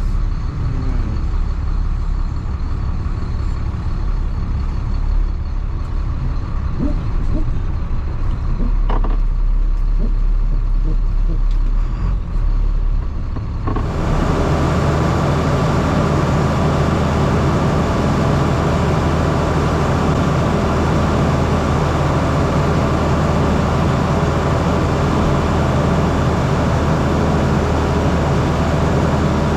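Truck engine running, heard from inside the cab. About 14 seconds in the sound changes abruptly to a fuller, louder engine-and-road noise.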